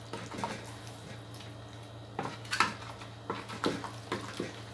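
A wooden spoon stirring chunks of chicken and vegetables in a thick sauce in a large aluminium pot, knocking and scraping against the pot's side in irregular clacks. A steady low hum runs underneath.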